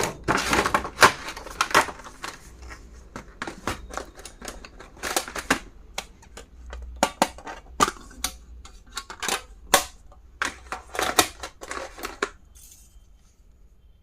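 Irregular clicks, taps and crinkles of plastic stationery items and packaging being handled and unwrapped, stopping about 12 seconds in.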